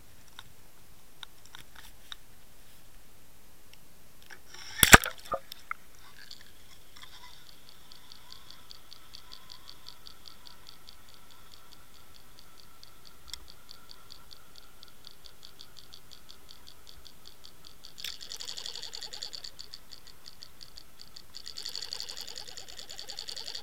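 A sharp splash about five seconds in as the rig hits the water, then a steady fast ticking while the Sprut Taiho 120F minnow lure is retrieved underwater, with a louder hiss joining near the end.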